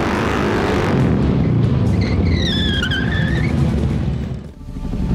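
Music mixed with vehicle engine sound. A high tone dips and rises for about a second and a half, about two seconds in. The sound drops away briefly near the end.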